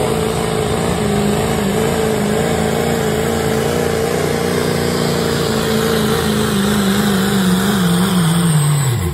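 Modified diesel pickup engine at full throttle pulling a weight-transfer sled, revs held high with a slight waver and creeping up. Just before the end the revs fall off sharply as the pull ends.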